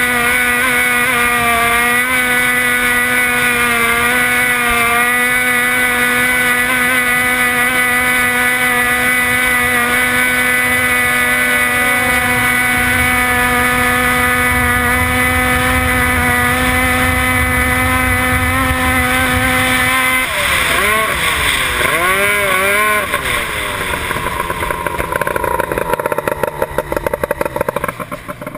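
Race boat's outboard engine running hard at a steady high pitch. About twenty seconds in, the revs start rising and falling repeatedly, and the sound drops briefly near the end.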